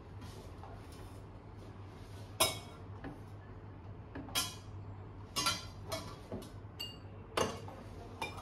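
Stainless steel milk pitcher clinking and knocking as it is handled and positioned under an espresso machine's steam wand: a handful of sharp metallic knocks, the loudest about two and a half seconds in, one ringing briefly, over a low steady hum.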